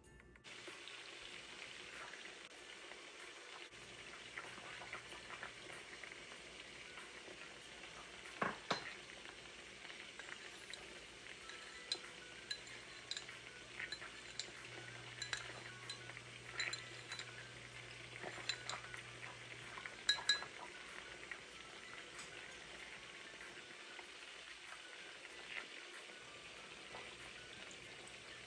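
Meat sizzling in a pot on the stove, a steady hiss, with a metal spoon clinking against a bowl and pot now and then, loudest twice, about a third of the way in and again about two thirds of the way in.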